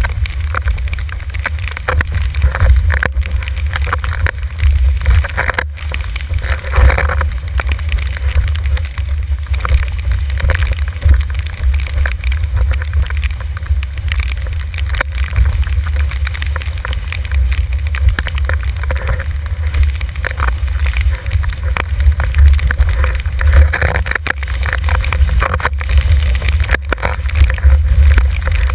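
Wind buffeting the microphone with a heavy, gusting rumble, over the hiss and slap of a windsurf board speeding through choppy water and throwing spray.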